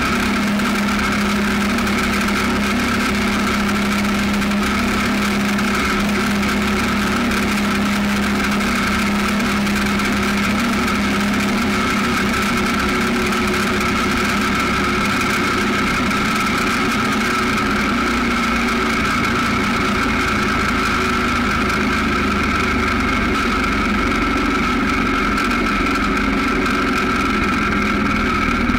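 John Deere 314 garden tractor's single-cylinder engine running steadily at an even speed, close up, with no revving.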